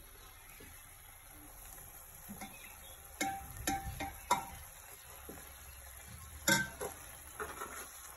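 A steel ladle knocking and scraping against a kadai as boiled moth dal is stirred into a masala frying in oil, over a low sizzle. The knocks start about three seconds in, each with a short metallic ring, and the loudest comes near the end.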